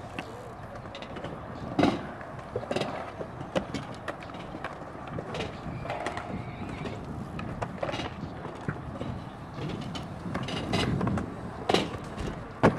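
Skatepark sounds: skate wheels rolling over ramps and concrete, with scattered clacks and knocks, and one sharp knock near the end, the loudest.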